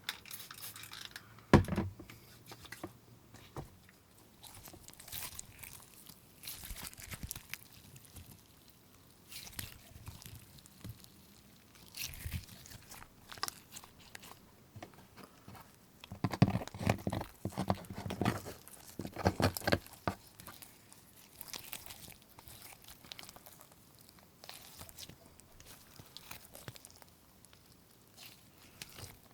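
Slime being pressed and kneaded by hand, making irregular crackling and squishing clicks as air pockets pop. There is a sharp click about a second and a half in, and a denser run of louder crackles past the middle.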